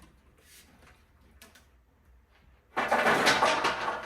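Wooden slat supports being handled onto a metal bed frame: mostly quiet with faint taps, then, about three seconds in, a loud scraping noise lasting over a second, with a second one starting right at the end.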